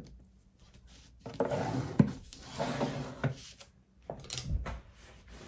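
A sheet of cardstock is handled by hand: rubbing and rustling as it is pressed along its fold and slid across a paper envelope. There is a sharp tap about two seconds in and a soft thud a little after four seconds.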